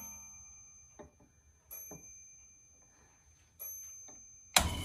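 Light metallic clicks and clinks, a few with a short ringing tone, as the fittings of a watchmaker's lathe are handled and set. About four and a half seconds in, the lathe's electric motor switches on with a sharp start and runs steadily with a hum.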